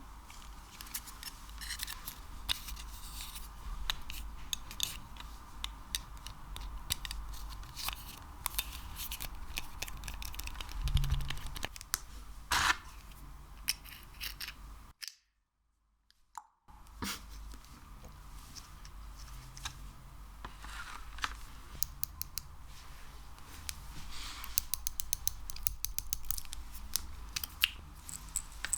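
Sticky ASMR material, slime or wax, being pressed and pulled by hand right at the microphone, giving many small sticky clicks and crackles with a few louder pops. The sound drops to dead silence for about a second and a half around the middle, then carries on.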